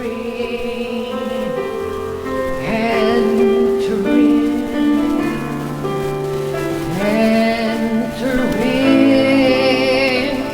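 Slow worship music: long held chords with a woman singing drawn-out notes.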